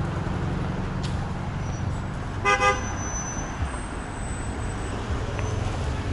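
Two short horn toots in quick succession about two and a half seconds in, over a steady low rumble of road traffic.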